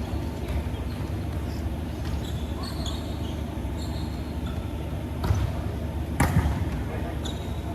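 Sneakers squeaking on an indoor court floor during play, over the steady rumble of a large hall, with two sharp ball impacts about five and six seconds in, the second the loudest.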